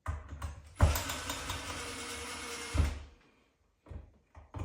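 Cordless screwdriver running for about two seconds as it drives a long mounting screw into an electrical box, with a knock as it starts and again as it stops, and a few light clicks around it.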